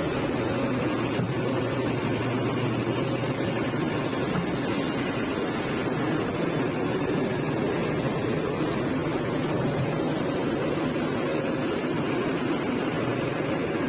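Kobelco SK200 hydraulic excavator's diesel engine running steadily, with no clear revving up or down.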